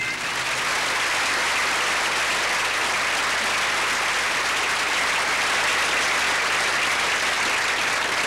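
Studio audience applauding, steady and sustained.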